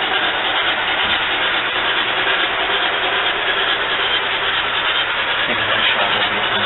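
Model train of Daylight passenger cars rolling along the layout track: a steady, even running noise with a low hum underneath.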